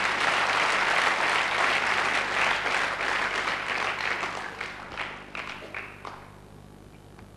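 Audience applauding in a hall, thinning out after about four seconds into a few scattered claps that stop about six seconds in.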